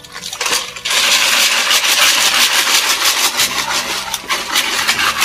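Live snails being washed in a plastic bucket: hose water splashing in while the shells clatter against each other, loud and continuous from about a second in.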